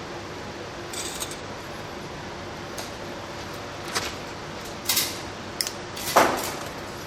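A handful of short, sharp clicks and snips from small hand tools working on wire, a second or more apart, the loudest near the end, over a steady low background hum.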